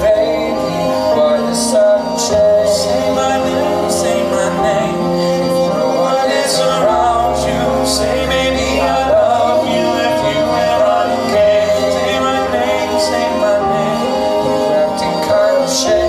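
A recorded song with singing plays over sustained deep bass notes, with a few sharp percussive hits along the way.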